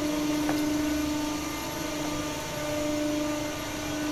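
Steady machine hum with one constant mid-pitched drone and a fainter higher tone over a noise bed, which thins briefly about two and a half seconds in. The sound is typical of a CNC press brake's hydraulic pump motor running idle.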